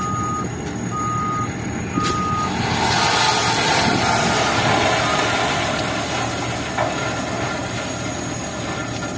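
Dump truck's reversing alarm beeping about once a second over running diesel engines, fading out after a few seconds. A sharp clank comes about two seconds in, then a loud rushing rattle of river stone sliding out of a tipped dump-truck bed for several seconds.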